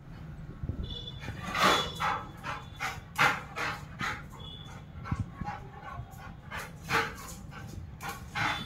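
Rottweiler barking repeatedly at a pigeon perched out of its reach, in short uneven runs of barks.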